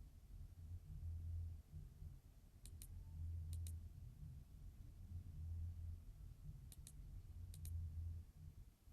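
Faint computer mouse clicks, coming in quick pairs four times, over a low hum.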